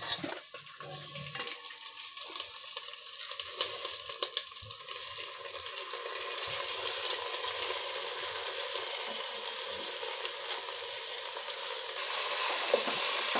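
Washed rice and moong dal poured into hot mustard oil and spices in an aluminium pot, sizzling. Scattered crackles at first give way to a steadier hiss that grows louder toward the end as more grain goes in.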